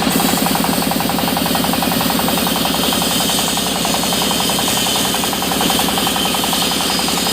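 Sawmill machinery running steadily with a rapid, even pulsing beat.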